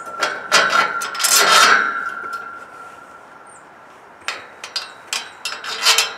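Steel threaded rod being handled as a nut and washer are fitted to its end: a grating metal scrape with a steady ringing note for the first two seconds, then several short metallic clicks and clinks from about four seconds in.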